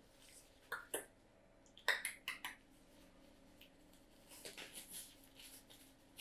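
Light clicks and knocks of kitchen containers and utensils being handled during marinade preparation: two about a second in, a quick cluster about two seconds in, then a soft rustle near the end.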